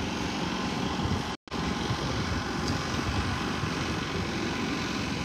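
Wind buffeting the phone's microphone: a steady, even rumble, with the audio cutting out for a split second about a second and a half in.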